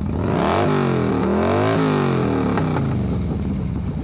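Can-Am Ryker three-wheeled motorcycle's engine revved up and down twice from idle, then settling back to a steady idle near the end.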